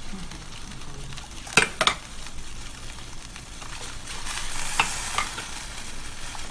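Pot of water boiling on a stove with a steady bubbling hiss, as hot water is ladled from it and poured over a foam wing to straighten the dented foam. Two sharp knocks come about a second and a half in, and the splashing grows louder with a few more knocks around four to five seconds in.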